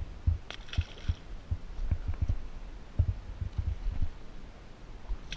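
A released summer flounder splashing into the sea about half a second in, over an irregular run of dull low thumps and knocks.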